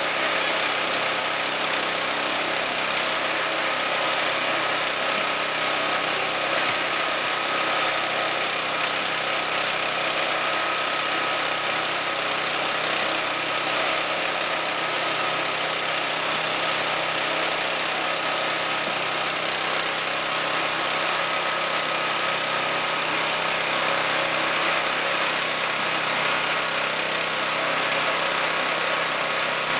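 Concrete mixer engine running steadily at a constant speed, with a thin steady whine over the engine noise.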